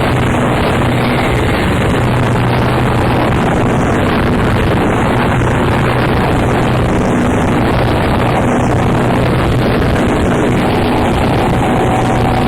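Harsh noise music from a cassette: a loud, unbroken wall of distorted noise with a low drone that drops in and out. A thin higher tone enters near the end.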